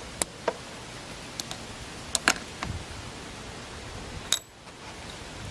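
A few scattered light clicks and metallic clinks of hand work on the outboard's spark plugs and plug wires, over a steady hiss, with one sharper click a little past four seconds in.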